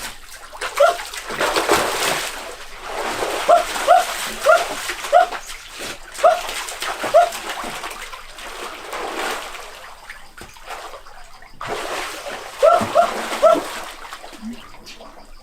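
Water splashing in waves, broken by runs of short, rising, high-pitched yelps, several in quick succession.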